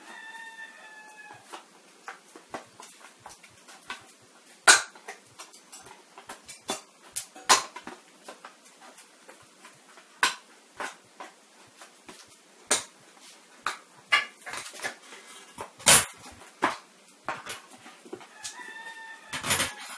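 Scissors cutting through a plastic bleach bottle: irregular sharp snips and crackles of the plastic, a handful of them much louder than the rest. A drawn-out, high pitched cry is heard at the start and again near the end.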